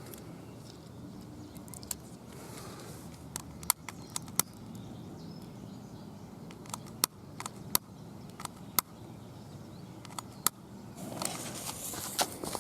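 Scattered sharp clicks, then about eleven seconds in a hissing rush sets in: the fuse of a Triple Bang aerial firework burning toward launch.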